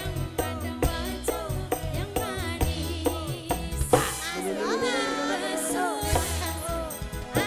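Live band music: a kendang hand drum plays a quick rhythm of pitch-bending strokes over an electone keyboard. About four seconds in the drumming drops out under a long held, wavering sung note from a woman, and the drum comes back near the end.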